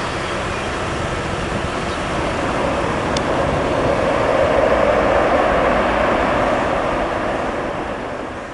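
Airbus A319's CFM56 jet engines on the landing rollout: a steady jet roar that swells to its loudest about halfway through and dies away near the end.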